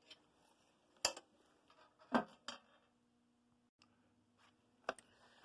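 A few sharp clicks of hard objects, four of them spread unevenly over several seconds, with quiet between.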